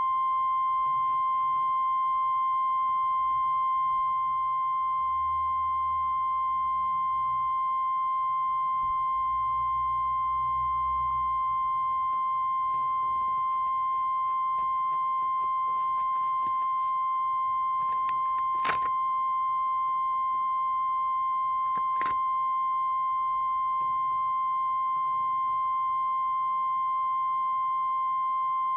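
Steady 1 kHz line-up test tone of the kind recorded with colour bars on videotape: one unbroken pure beep at an even level. Two brief clicks break in during the second half, about three seconds apart.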